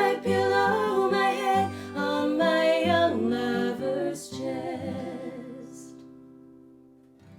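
Instrumental closing bars of a traditional Irish folk ballad, with a melody over sustained accompanying chords. Partway through, the playing stops and the final chord rings on, fading out gradually.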